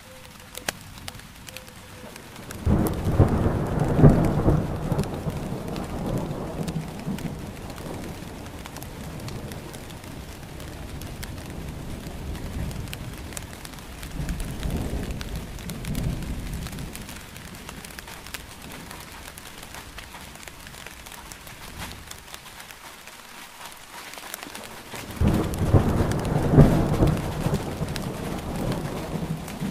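Steady rain falling, with rolling thunder. A loud rumble starts suddenly about two and a half seconds in and fades slowly, a weaker one comes near the middle, and another loud one starts near the end.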